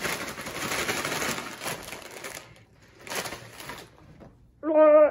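Foil-lined bag of kettle-cooked habanero chips crinkling and rustling as it is pulled open and handled, with a second, shorter rustle about three seconds in. Near the end comes a short, loud, steady voice-like tone, the loudest sound.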